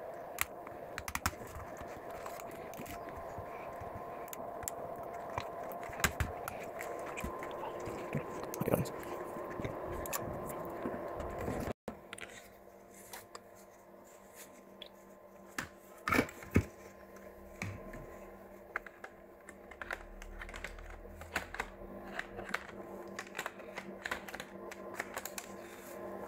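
Laptop keys being pressed, a run of clicks over a steady hum. After a sudden cut come scattered clicks and knocks of plastic laptop parts and a battery being handled, over a steady low hum.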